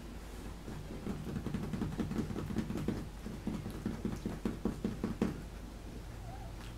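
Three-week-old puppies nursing on their mother: a rhythmic run of short wet suckling smacks, several a second, from about a second in until about five seconds in.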